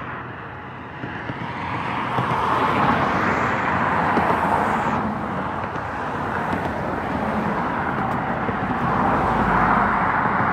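Steady road traffic noise, with a car passing close by near the end.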